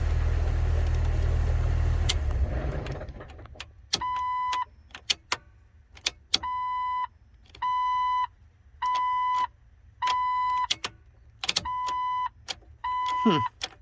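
The 2003 Jeep Wrangler Rubicon's 4.0-litre straight-six engine is running and then dies away about two and a half seconds in. The owner takes this as his ignition-switch fix not holding: the switch connector was not plugged in all the way. The Jeep's warning chime then beeps steadily, about once every 1.2 seconds.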